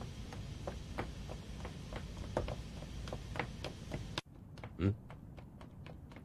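Footsteps of two people running on hard ground, an even run of sharp steps about three a second over a low rumble. About four seconds in it cuts to fainter steps and a single dull thump.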